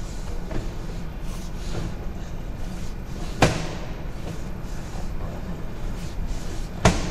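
Sewer inspection camera rig being fed down a 6-inch main line, with a steady low rumble in the background. Two sharp knocks come about three and a half seconds apart, the second near the end.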